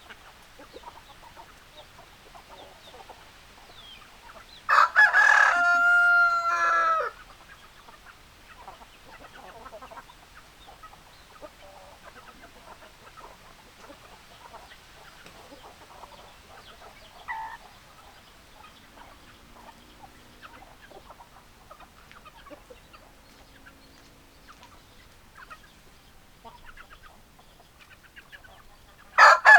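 Rooster crowing, one loud crow of about two seconds around five seconds in and another starting near the end, with hens clucking faintly between them.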